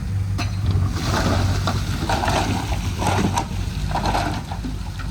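Heavy earthmoving machine's diesel engine running with a steady low hum, under a gritty rushing noise with scattered clicks from about a second in, as dirt and rock are pushed and shifted.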